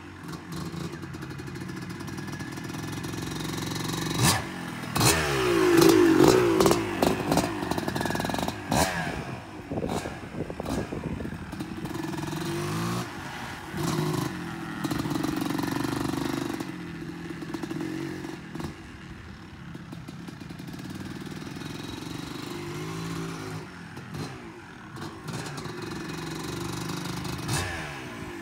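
Vintage Kawasaki two-stroke motocross bike being ridden, its engine revving up and falling back as the throttle opens and closes. It is loudest about five to six seconds in.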